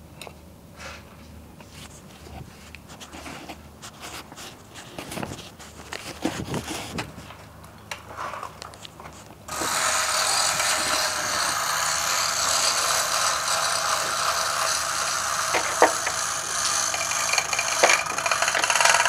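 Light clicks and knocks of metal engine parts being handled. About halfway a loud, steady, hissing machine noise starts abruptly and runs on, with a few sharp clicks over it.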